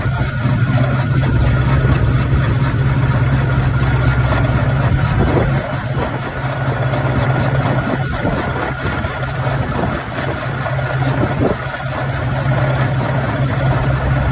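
Heavy earthmover diesel engine running steadily with a deep, even hum, cold-started and warming up; the level dips slightly about six seconds in.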